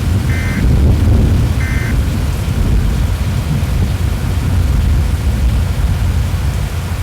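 Thunderstorm: heavy rain over a loud, steady low rumble. Two short, high electronic beeps about a second and a half apart sound in the first two seconds.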